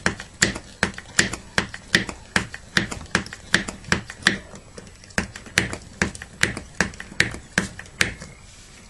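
Hand vacuum pump of a VacuumSaver food-storage container being worked to draw a vacuum in the container, a sharp click with each stroke, about two and a half a second. The clicking stops about eight seconds in.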